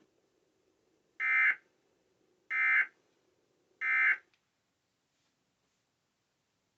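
Emergency Alert System end-of-message code: three short, identical bursts of high-pitched, buzzy digital data tones, each about half a second long and a little over a second apart, signalling the end of the alert broadcast.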